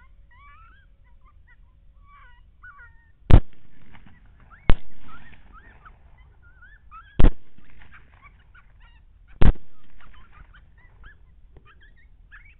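Coyotes yipping and howling, then four shots from a suppressed rifle, about 3, 5, 7 and 9.5 seconds in. Each shot is loud and sharp and trails off over about a second, with faint yips between them.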